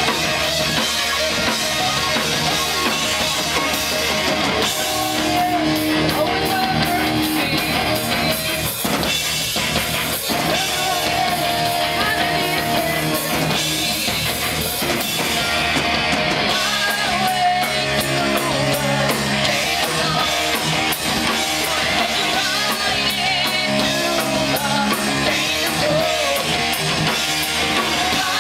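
Live heavy metal band playing: electric guitars, bass and drum kit, with a female vocalist singing into the microphone over it.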